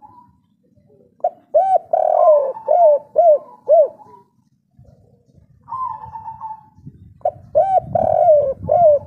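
Spotted dove cooing: two phrases of short, arched coo notes, the first starting about a second in and the second about seven seconds in, with a softer single coo just before the second.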